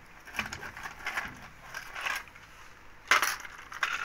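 Grit and small stones crunching and scraping on a concrete floor as they are handled, in scattered short scrapes with one louder scrape about three seconds in.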